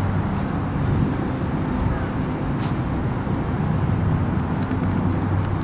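Steady low drone of a moving car, road and engine noise.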